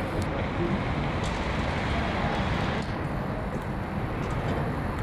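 Steady rushing noise of a small hatchback's front end on fire, with a few faint crackles and pops.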